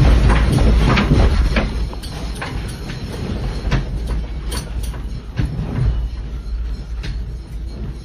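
A building shaking in a strong earthquake: a deep rumble with many rattling knocks, loudest for the first couple of seconds, then easing.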